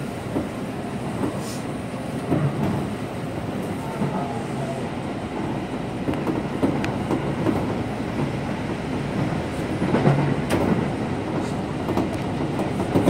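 Seibu 2000 series electric train running along the line, heard from inside the front car: a steady rumble of wheels on rails with occasional sharp clicks as the wheels pass over rail joints.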